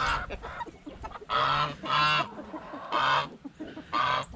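Chicken hen cackling: a run of about five loud, honking squawks with short gaps between them, the egg song a hen gives after laying, as it sounds here.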